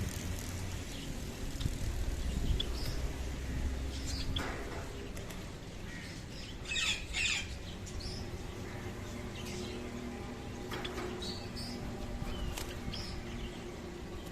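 Java sparrows giving short, scattered chirps, with a louder pair of calls about seven seconds in, over a low background rumble that eases after the first few seconds.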